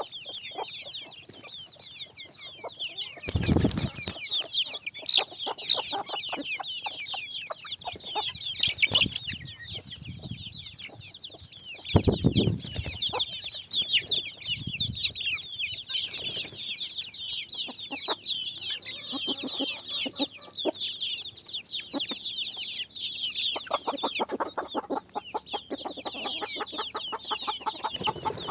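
A flock of chickens clucking, with a dense stream of high, short calls throughout. A couple of brief low thumps come about three and a half seconds in and again about twelve seconds in.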